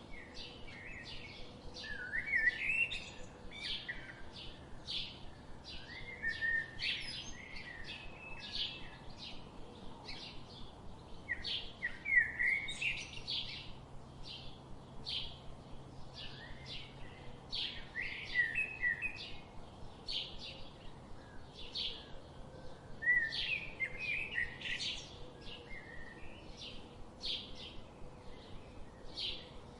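Songbirds chirping: a steady run of short, high chirps, about two a second, with a lower warbling phrase breaking in every few seconds.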